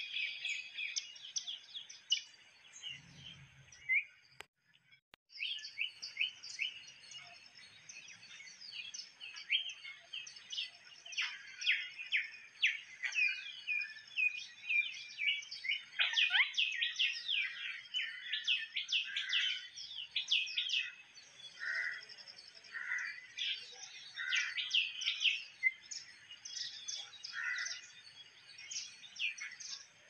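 Many small birds chirping and twittering at once, a dense chorus of quick high chirps. The sound cuts out for under a second about four and a half seconds in.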